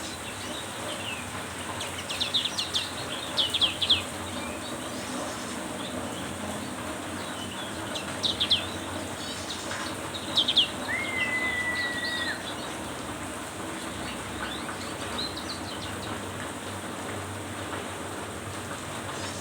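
Black-capped white-eye chirping in short clusters of quick, high, falling notes, with one long steady whistle about eleven seconds in, over the steady hiss of heavy rain.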